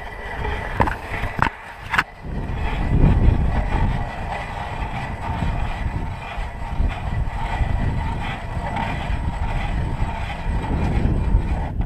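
Wind buffeting the camera microphone: a low, uneven rumble that swells and dips, with a few sharp clicks in the first two seconds and a faint steady tone underneath.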